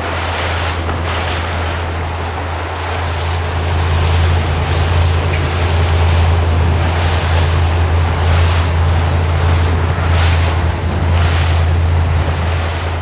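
Motorboat engine running steadily at low cruising speed, a deep even hum, with water washing and splashing against the hull every second or so and some wind on the microphone.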